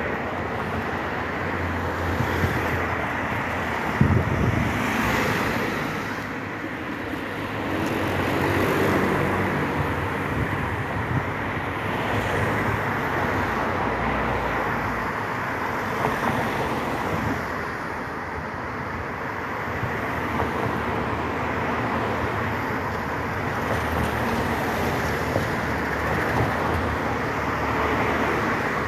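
Road traffic on a dual carriageway: a continuous rush of tyres and engines, swelling and fading as cars pass in waves.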